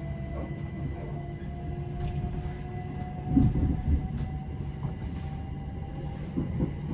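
Inside an electric passenger train running on the line, with a low rumble of wheels on track and a faint whine from the traction equipment that slowly rises in pitch as the train gathers speed. A heavier low knock comes about three seconds in, with a few light clicks.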